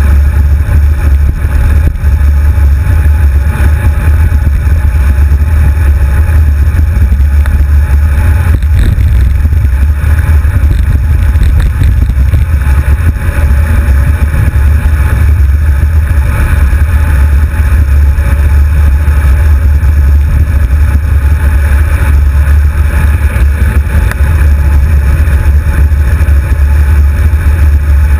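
Wind buffeting the microphone of a handlebar-mounted GoPro as the bicycle rides along, a steady loud low rumble with hiss above it.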